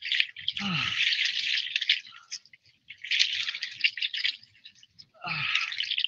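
Water splashing in bursts of a second or two as a catfish is worked in the shallows and released, kicking off. Short low falling grunts from the man come about half a second in and again near the end.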